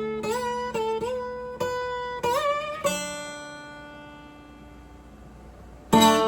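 Guitar playing single notes that slide up in pitch, then a note left ringing and fading for about three seconds before a loud chord strikes near the end.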